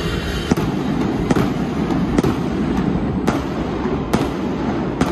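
Fireworks going off in a series of sharp bangs, about six in five seconds, over a steady low rumble.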